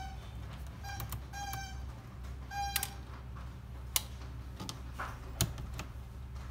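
Screwdriver undoing the screws on a laptop's plastic bottom case: four short squeaks of the turning screws in the first three seconds, then a few sharp clicks.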